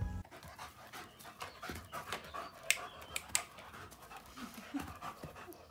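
Dog panting, with a couple of sharp clicks about halfway through.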